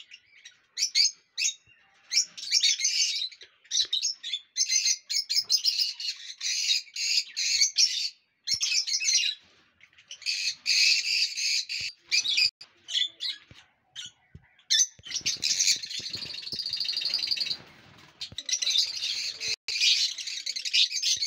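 Lovebirds squawking and chirping: rapid runs of short, shrill calls in bursts, broken by a few brief pauses.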